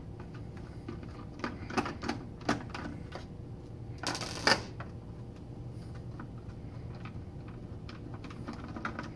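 Torx screwdriver working the case screws in the plastic handle recess of a Macintosh Classic II: a few sharp clicks and taps, then a louder half-second rasp about four seconds in, over a steady low hum.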